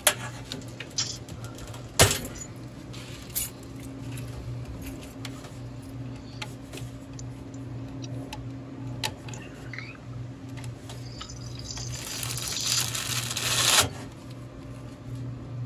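Hands working among the cables inside a vending machine: scattered small clicks and rattles, with one sharp snap about two seconds in as a plastic zip tie is twisted apart by hand. Near the end a louder scraping rustle lasts about two seconds as the plastic telemeter box is worked loose, over a steady low hum.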